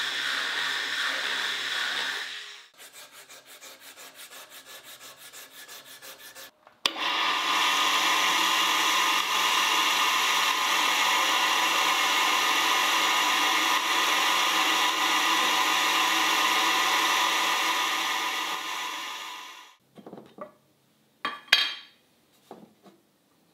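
An electric sander runs on a wooden handle for about two seconds. Softer rhythmic rubbing strokes follow, about four a second. Then a CNC router spindle runs steadily for about thirteen seconds as its bit mills into the wooden handle, winding down near the end, followed by a few light clicks and knocks.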